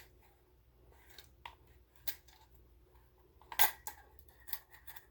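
Scattered light metallic clicks and scrapes of a Grendel P30 pistol's parts being worked apart by hand, its front end held against a big spring underneath. The loudest clicks come about three and a half seconds in.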